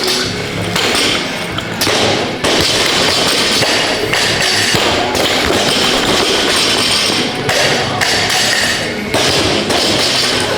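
Gym workout in full swing: repeated thuds and taps of equipment, with music playing underneath.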